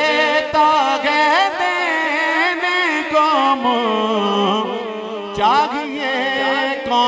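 A man singing a naat through a microphone, drawing out one long ornamented phrase, his voice gliding up and down in melismatic turns with hardly a break.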